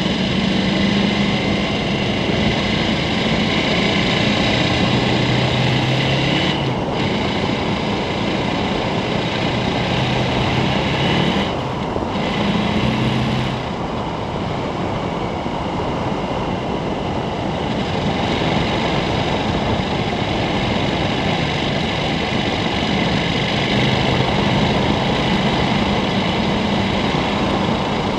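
KTM 1290 Super Adventure's V-twin engine running steadily under way, its pitch shifting with speed and briefly easing off about halfway through. Wind rushing over the helmet microphone and tyre noise from the gravel road run alongside.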